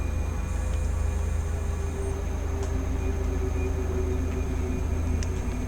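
Steady low rumble with a few faint humming tones above it and the odd faint tick.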